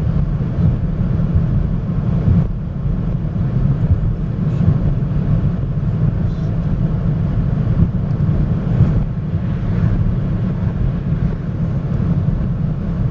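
Car interior road noise while driving: a steady low rumble of engine and tyres on the road.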